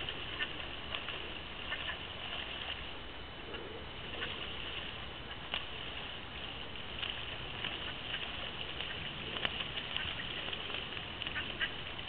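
Ducks splashing in pond water: a steady patter of water with scattered light splashes and ticks.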